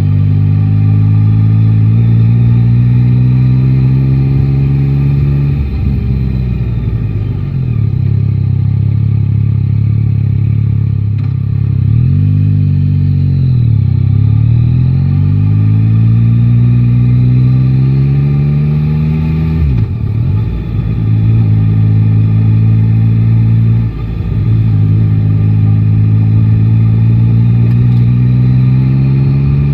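Yamaha Tracer 9 GT's 890 cc three-cylinder engine pulling through city riding. Its pitch climbs and falls with the throttle, sags twice in the first half, and cuts briefly at gear changes, sharply a little under two-thirds through and again later.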